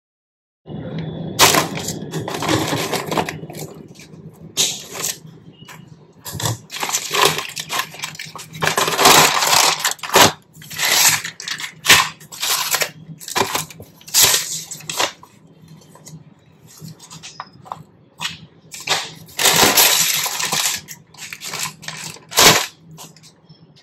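Food-delivery packaging being unwrapped: plastic and paper crinkling and rustling in irregular bursts, with a few sharp clicks, over a low steady hum.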